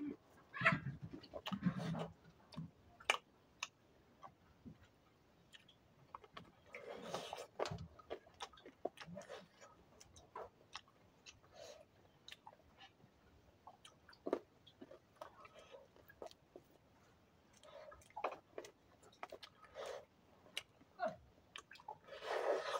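Someone eating, chewing and biting food, heard as scattered small crunches and clicks at an uneven pace.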